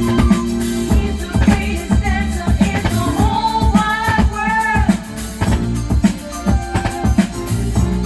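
Vinyl record of a disco-funk song playing, with a steady drum beat and a sung vocal line about halfway through. The pressing carries a click from a short, heavy rub in the groove, which the seller grades VG- for this section.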